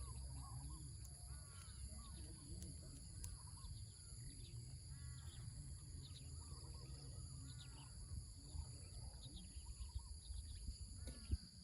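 Faint short animal calls, chirps or yips, repeating irregularly over a low rumble, with a steady high-pitched whine throughout.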